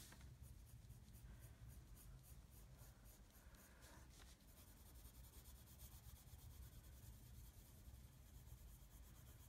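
Faint, continuous scratching of a black Prismacolor colored pencil on paper, many quick short strokes laying down a dark shadow.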